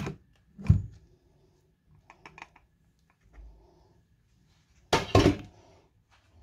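Kitchen handling knocks: an electric stick blender, switched off, knocked and set down on the counter, with a few light clicks, then a loud double knock about five seconds in as the bowl of batter is moved.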